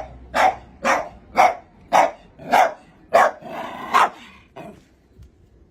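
A dog barking over and over, about two barks a second, eight or so in a row, stopping about four and a half seconds in.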